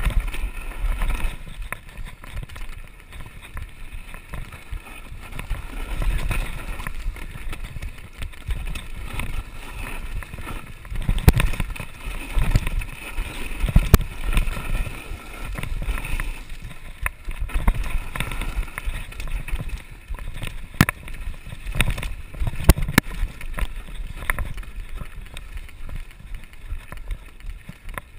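Mountain bike running down a rough, dusty dirt singletrack: a steady rumble of tyres on loose ground and wind, broken by sharp rattles and knocks from the bike over bumps, several loud ones around the middle.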